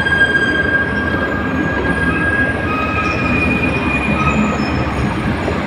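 Hino truck rumbling low in the cab as it rolls up a RoRo ferry's steel loading ramp, with several drawn-out high metallic squeals over the rumble.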